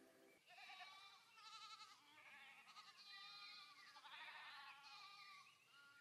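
A flock of sheep and goats bleating faintly: a string of short, quavering calls, several overlapping one after another.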